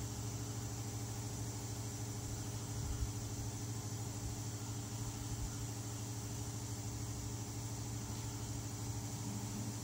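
Steady low machine hum with an even hiss, unchanging throughout, and a faint knock about three seconds in.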